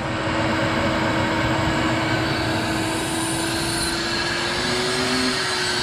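Ridgid wet/dry shop vacuum running steadily, with air rushing through its hose and a steady motor tone that rises a little late on.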